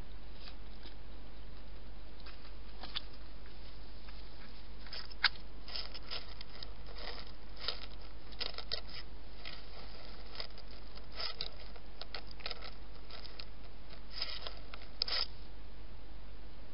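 A wild hedgehog eating right beside the camera: quick, irregular crunches and scrapes that come in clusters, over a steady low hum.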